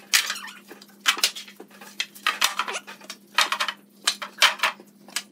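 Hand work on wood: a series of short, sharp scraping strokes, roughly one a second and uneven in spacing, with a faint steady hum underneath.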